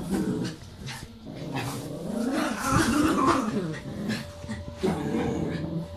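Small dogs at rough play, growling and whining at each other with pitch rising and falling, loudest around the middle.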